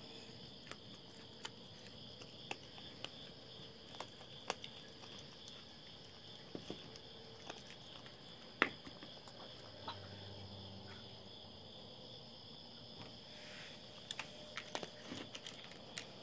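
A steady, high-pitched chorus of night insects trilling, with a raccoon crunching dry cat food from a bowl on top as scattered sharp clicks, one louder than the rest a little past halfway.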